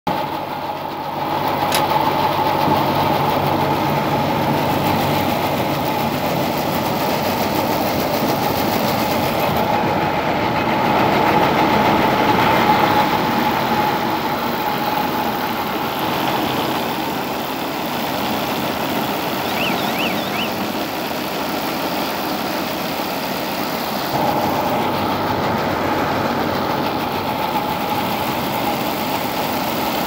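Silage baling machine running with a steady mechanical hum while chopped silage is shovelled onto its feed conveyor.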